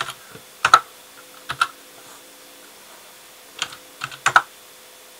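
Computer keyboard typing: keys struck in short clusters of two or three clicks, with pauses of up to two seconds between clusters.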